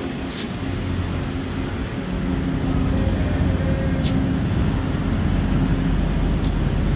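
Steady low machinery hum and rumble, with a brief faint whine about three seconds in and a single sharp click about four seconds in.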